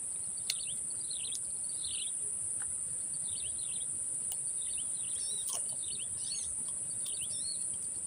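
Steady high-pitched drone of insects, with many short bird chirps over it and a few faint clicks, the sharpest about half a second in.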